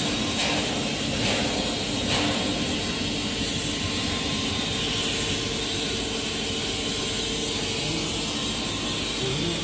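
Steady hiss of a TIG welding arc on carbon-steel pipe, over a low, steady machine hum. A couple of faint clicks come in the first few seconds.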